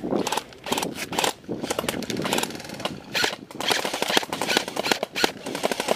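Airsoft rifles firing in several rapid bursts, each a quick run of sharp clacks.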